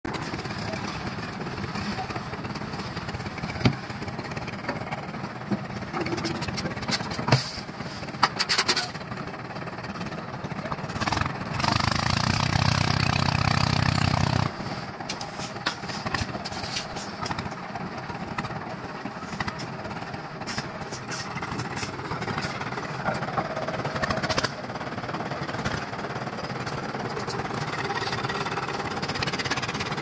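One-bag concrete mixer running steadily, with scattered sharp knocks and a louder, heavier stretch of about three seconds near the middle.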